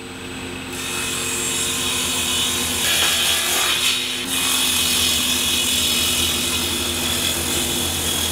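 Table saw running with its blade cutting through a plywood panel as it is fed across the table. The steady motor hum carries on under the rasp of the cut, which starts about a second in.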